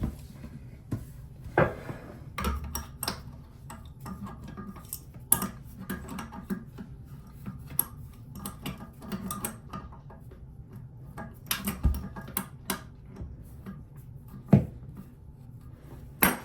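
Metal wrench clinking and knocking against the toilet tank's water supply line fitting as it is tried on the nut, a size too small. Irregular sharp clicks and taps, with a few louder knocks.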